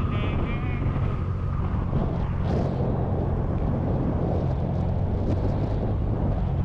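Motorcycle engine running steadily while riding along at speed, with wind rushing over the microphone.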